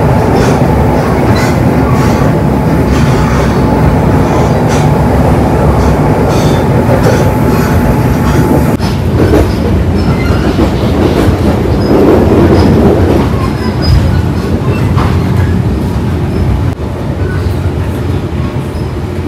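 Passenger train running on the rails: a loud, steady rumble with repeated clicks of wheels over the track. A thin steady whine sits over it and stops about halfway through.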